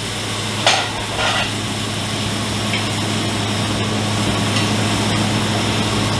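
Food sizzling in pans on a commercial gas range over a steady low hum, with two short knocks of cookware about a second in.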